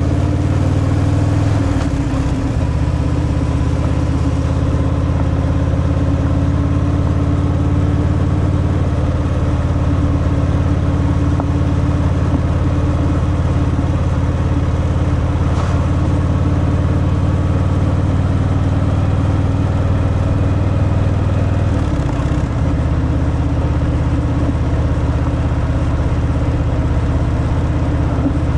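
Harley-Davidson Fat Boy's V-twin engine running steadily through its stock exhaust while riding. The engine note dips briefly twice, about two seconds in and again about two-thirds of the way through.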